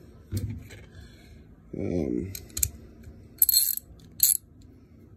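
Chrome steel sockets and ratchet clinking: a click, then two bright metallic clinks in the second half, as sockets shaken loose from the ratchet knock together.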